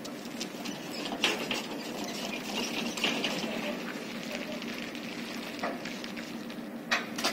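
Steady low mechanical hum with crackling and several sharp clicks and knocks as a GT8 tram car is drawn slowly onto a low-loader trailer.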